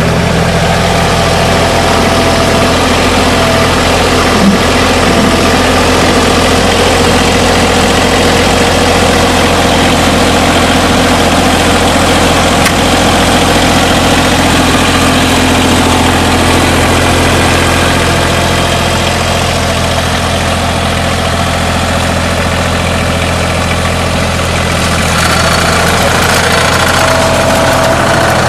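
TYM T233 compact tractor's diesel engine running steadily at low speed.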